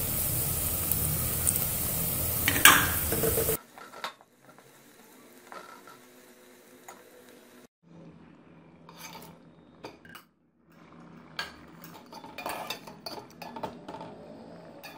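Onion-and-spice masala sizzling in hot oil in an aluminium pot while a metal slotted turner scrapes through it; the sizzle cuts off abruptly about three and a half seconds in. After that come quieter, scattered clinks and scrapes of the metal turner against the pot as mutton liver pieces are stirred into the masala.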